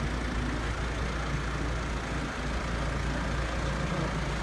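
Tractor engine running steadily with a deep, even drone.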